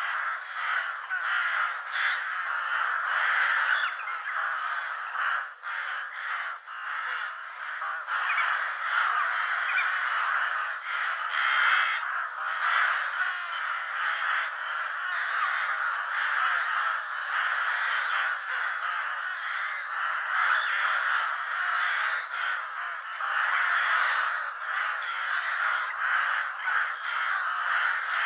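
Many crows cawing at once, their calls overlapping without a break.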